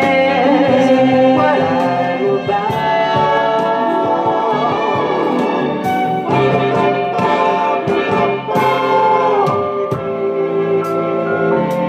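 Recorded soul music, an instrumental stretch led by a horn section over a steady bass line.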